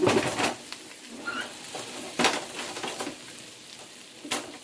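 A plastic spoon stirring and scraping shrimp and diced vegetables in a nonstick frying pan, with a few sharp clacks of spoon against pan, the first right at the start and others a little after two seconds, at three seconds and near the end.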